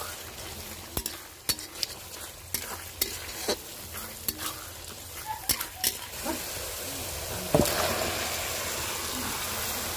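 Steel spoon stirring and scraping a tomato-onion masala frying in oil in a metal kadai, with scattered sharp clicks of the spoon against the pan over a steady sizzle. The sizzle grows louder in the second half, with one sharp knock about seven and a half seconds in.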